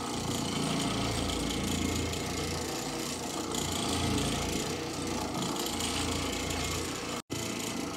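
Oreck Orbiter orbital floor machine running steadily, its pad scrubbing the carpet: a low motor hum under a constant scrubbing hiss. The sound cuts out for an instant about seven seconds in.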